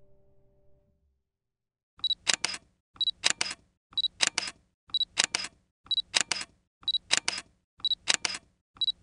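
Camera focus-confirm beep followed by a double shutter click, repeated about once a second, starting about two seconds in after faint music fades out.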